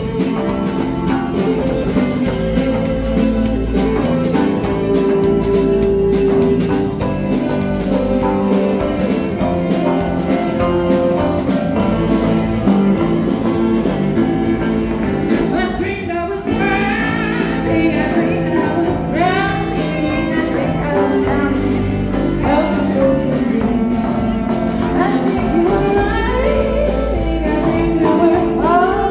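Live band music: guitar over a steady beat. The music thins briefly about halfway, then a lead line with bending notes comes in.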